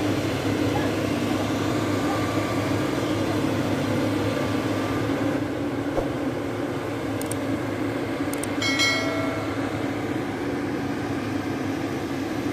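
Diesel engine of a Hitachi ZX-210 long-arm excavator running steadily as it works. A short high-pitched sound comes about nine seconds in.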